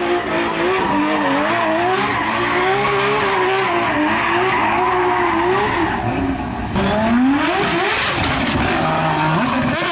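Racing car engine revving up and down, with tyres squealing. About seven seconds in the sound changes abruptly and the revs climb sharply.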